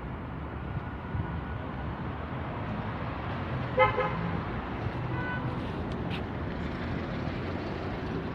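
Steady street traffic and engine rumble, with a short vehicle horn toot about four seconds in and a fainter, shorter beep about a second later.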